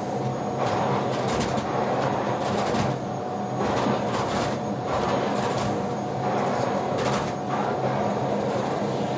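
Vacuum cleaner running with a steady motor drone, its suction hiss rising and falling irregularly as the nozzle moves over the floor.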